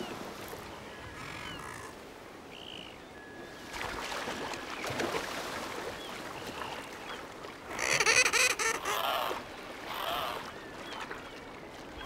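Guillemots calling on the sea, an adult with its newly fledged chick. Faint short high calls come first, then splashing on the water, then a run of loud repeated calls about two-thirds of the way through.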